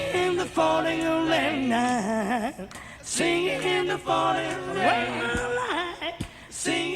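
Several voices singing together in harmony, with little or no instrumental backing, from a live rock concert recording. The phrases break off briefly twice.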